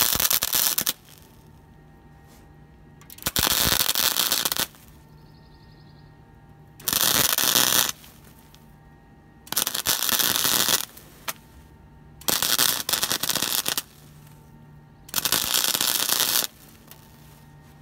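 Flux-core MIG welder arc crackling and spitting on thin sheet steel in a series of short tack welds: a burst ending about a second in, then five more bursts of about a second each, a couple of seconds apart, with a low hum between them. The tacks are laid one over another as a stitched run, which keeps the heat down so the thin panel does not warp.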